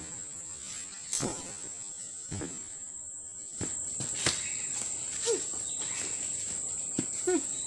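A steady, high-pitched drone of insects calling, with a few short knocks scattered through it.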